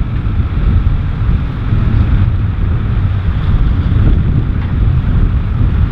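Wind buffeting the microphone in a steady, fluctuating low rumble, over the running of farm tractors ploughing.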